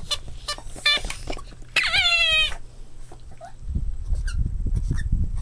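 Boston Terrier puppy whining: a short high call about a second in, then a louder, longer whining yelp with a slightly falling pitch. Low rumbling noise follows in the second half.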